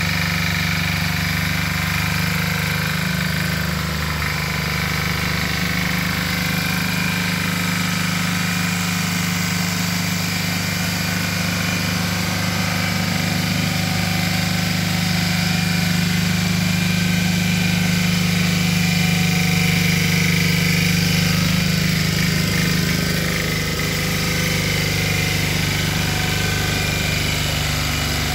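Valpadana walk-behind tiller with an 8 hp, 359 cc Lombardini engine running steadily while tilling soil, a little louder past the middle.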